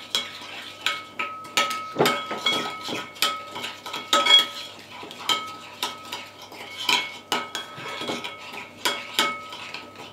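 A spoon stirring thick marinade in a ceramic bowl, clinking against the bowl's sides about twice a second in an uneven rhythm. Each knock leaves a brief ringing tone.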